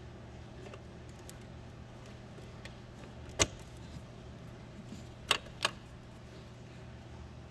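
White plastic wire-harness connectors being unplugged from a circuit board: three sharp plastic clicks, one about three and a half seconds in and two close together a little after five seconds, with faint handling ticks between.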